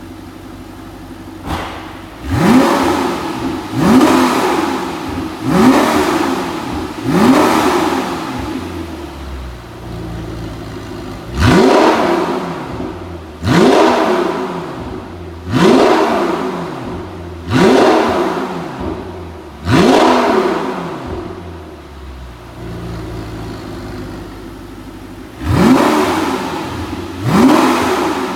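Audi R8's 4.2-litre V8 through an Evox valved stainless-steel exhaust, idling and revved hard in quick free-revving blips. The blips come in a run of four, then five, then two, with steady idle between, each rising sharply in pitch and falling back.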